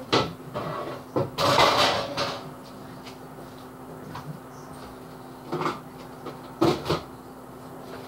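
Kitchen cupboard doors knocking and dishes clattering as a dishwasher is emptied and its contents put away: a handful of separate sharp knocks, with a longer rattle of about a second near two seconds in.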